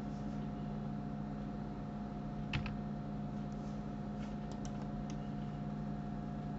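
A steady low hum with a faint higher tone running under it, and a quick double click about two and a half seconds in, followed by a few fainter clicks later: computer mouse clicks over background hum.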